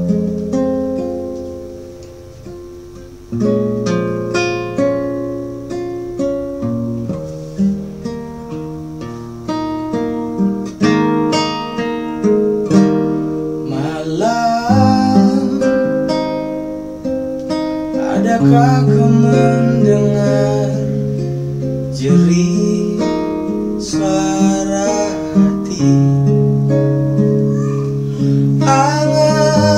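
Acoustic guitar picking chords, joined about halfway through by a man singing in Indonesian.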